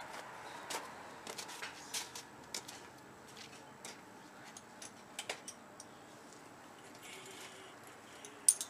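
Hand tools being rummaged through on a shelf: scattered light clicks and clinks of metal being picked up and set down, with one sharper clack near the end.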